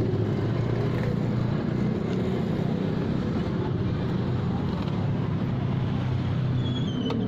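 Motorcycle engine idling with a steady low rumble.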